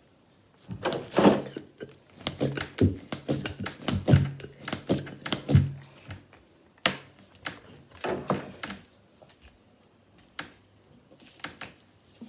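Irregular clicks and knocks of a plastic toy figure and its hand pump being handled, coming in quick clusters with short pauses between.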